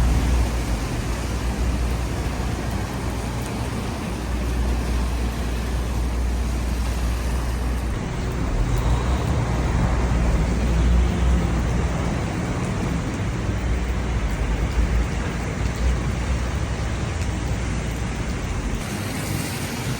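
City traffic on wet streets: a steady low rumble and hiss of passing vehicles.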